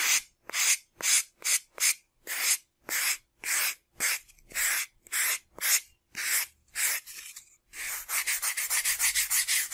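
Sandpaper rubbing over a foam model fuselage in short separate strokes, about two a second, then quicker strokes, about five a second, near the end.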